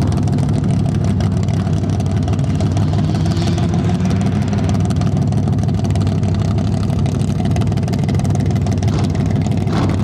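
Competition truck's engine running steadily, a loud low drone that holds an even pitch with no big revs.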